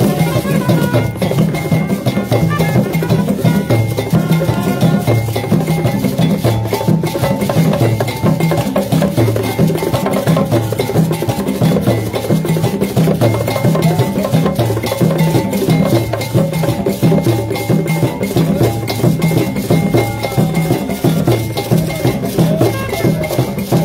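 Ghanaian traditional drum ensemble playing: tall hand drums and a square wooden box drum beat a steady, repeating rhythm, with gourd shakers rattling over it.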